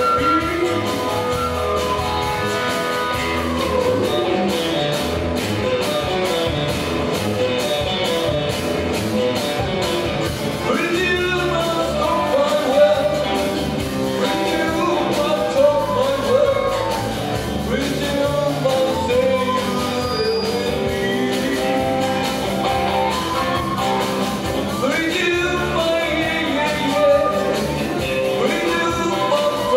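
Live rock-and-roll band playing a song, with a man singing lead over acoustic guitar, electric guitar, electric bass and a drum kit.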